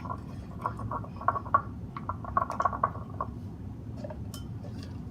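Slime being mixed as activator is added: a quick run of small clicks and clinks of the stirrer against the bowl, thinning out after about three seconds.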